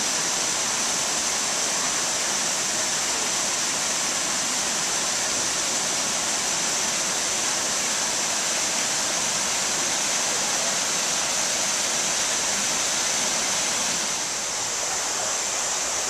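Steady rush of running water in a rocky stream, a little quieter near the end.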